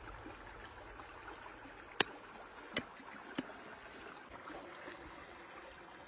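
Low, steady flowing-water noise of a creek, broken by three sharp metallic clicks about two, two and three-quarter, and three and a half seconds in, the first much the loudest, as small metal objects are handled.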